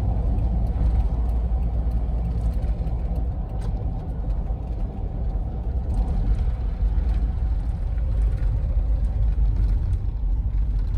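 Steady engine and road noise inside a camper van's cab while it drives along.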